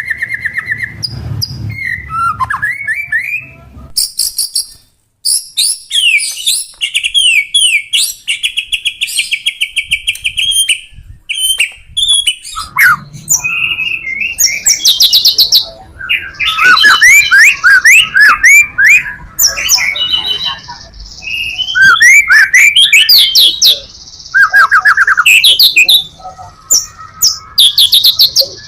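White-rumped shama singing loudly in a long, varied song of rapid trills, sweeping whistles and fast repeated notes, its full repertoire of learned phrases, with a brief pause about five seconds in.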